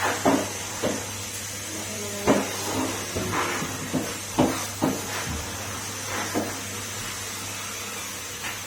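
Numatic Henry canister vacuum cleaner running steadily with a low hum and high hiss, while the floor tool knocks and clatters against the hard floor and along the edges about eight times in the first five seconds.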